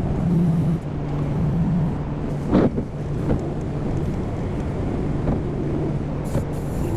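Vehicle engine running steadily at low speed while reversing to move an RV, with one short knock about two and a half seconds in.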